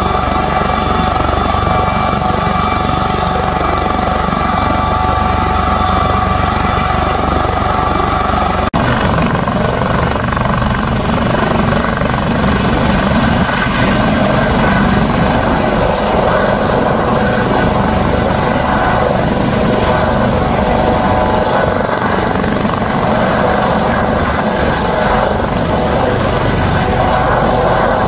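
Eurocopter AS565 Panther (Brazilian Army HM-1 Pantera) military helicopter, its twin turboshaft engines and rotors running at take-off power as it lifts off the ground into a low hover. A steady high turbine whine gives way abruptly, about nine seconds in, to a rougher, noisier rotor sound.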